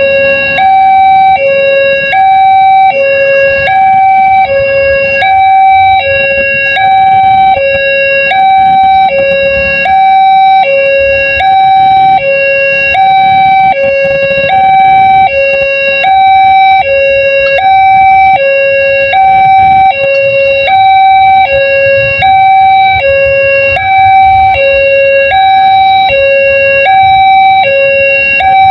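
Railway level-crossing warning alarm sounding a steady two-tone chime, a high and a low note alternating about once a second, signalling that a train is approaching and the barriers are down. The low hum of waiting road traffic is underneath.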